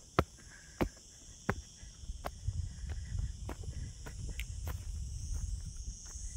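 Footsteps on dry, stony ground, a sharp step every second or so, over a steady high buzz of summer insects. A low rumble builds up from about two seconds in.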